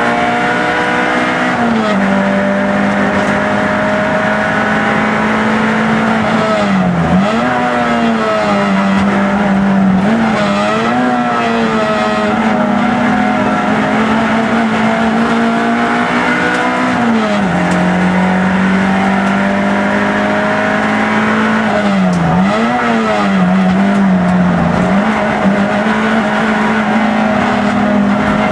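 Peugeot 106 race car's engine heard from inside the cabin, held at high revs for long stretches. Its pitch drops sharply and climbs back several times as the driver brakes, blips and changes gear for corners.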